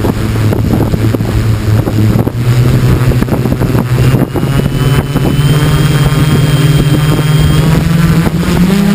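XAircraft X650 quadcopter's electric motors and propellers spinning up on the ground, heard close from the onboard camera: a steady hum that rises slowly in pitch as the throttle is raised before lift-off.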